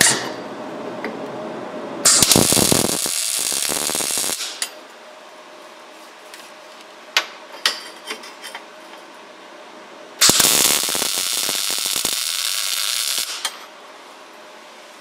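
Arc welder tacking a steel plate to a roll-cage tube: two bursts of welding arc, the first about two seconds long and the second about three, with a few light clicks between them.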